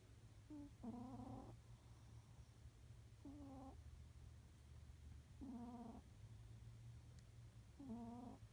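A sleeping cat snoring: a short, pitched snore on each breath, four in all, about two and a half seconds apart.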